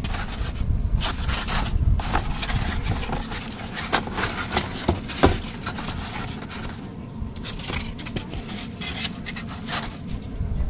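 Cardboard egg-crate flats in a plastic roach bin being lifted and shuffled, scraping and rubbing against each other and the bin in a run of irregular scrapes, with a short lull a little past the middle.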